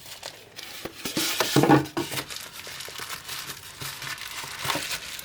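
Packaging being handled, crinkling and rustling with irregular crisp crackles, loudest for about a second near the start, as a replacement laptop screen is unpacked.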